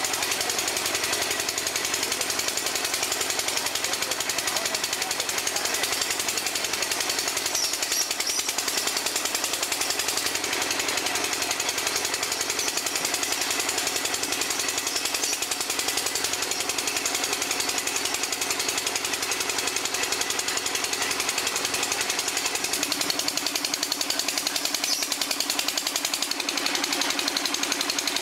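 Water-well drilling rig hammering rapidly and continuously as it bores. A lower steady tone comes in near the end.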